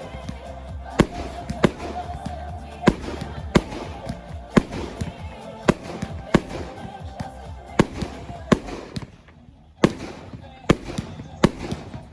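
Aerial firework shells bursting in a display, about a dozen sharp bangs spaced roughly a second apart, over background music.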